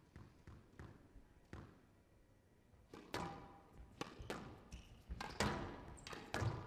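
A squash ball bounced several times on the court floor before a serve, faint and evenly spaced, then a rally from about three seconds in: sharp racket strikes and the ball hitting the walls, growing louder toward the end.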